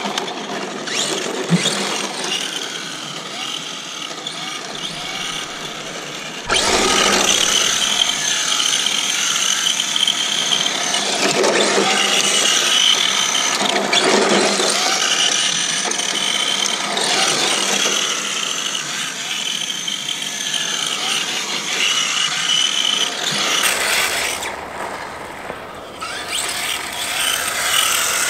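Tamiya TT-02 four-wheel-drive RC car's electric motor and gear drive whining, rising and falling with the throttle, as the car slides around on hard plastic tyres on asphalt.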